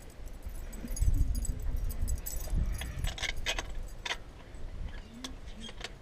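Metal clinking and rattling of a wrench and bolts on a car alternator being loosened for removal, a run of irregular sharp clicks in the second half. Low bumps and rumble in the first half.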